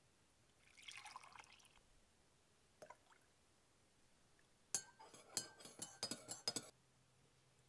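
Liquid poured into a ceramic mug for about a second. Then a metal spoon stirs and clinks rapidly against the inside of the mug, about ten ringing clinks over two seconds.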